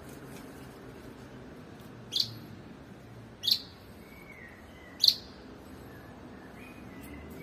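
Small bird chirping: three short, high chirps about a second and a half apart, with fainter whistled notes in between.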